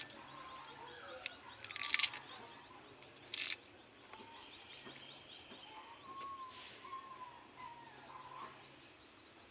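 Birds chirping and warbling faintly in the background, with two short bursts of noise about two and three and a half seconds in.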